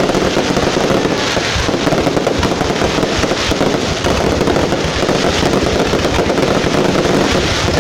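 Fireworks display: a dense, continuous rapid crackling and popping of bursting fireworks.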